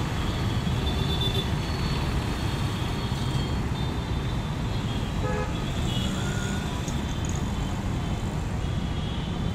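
Road traffic: a steady rumble of passing cars, motorbikes and auto-rickshaws, with short horn toots.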